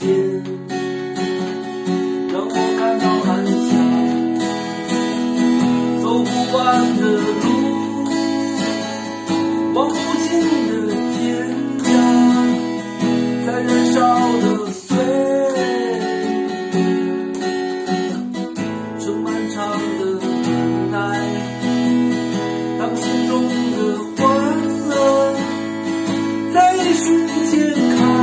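Acoustic guitar strummed steadily, playing the chords of a song.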